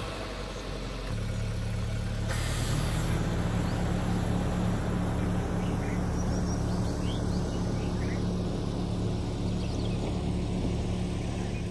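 Suzuki Jimny's four-cylinder petrol engine running at low revs as the SUV pulls away slowly over grass. The engine note steps up about a second in, then holds steady.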